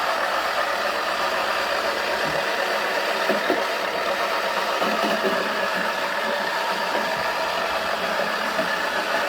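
Toy washing machine's small motor running steadily as its drum turns, with a powder ball rolling around inside and giving a few faint knocks.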